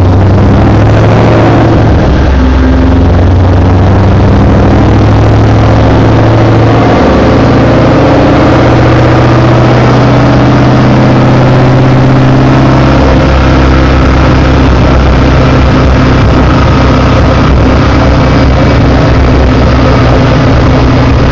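Supercharged V8 of a 2008 Shelby GT500 with a Magnaflow exhaust, running steadily at a light cruise load. Its pitch holds nearly constant, with small step changes. This is the cruise condition where a misfire has been cured by a SparkMAX ignition upgrade.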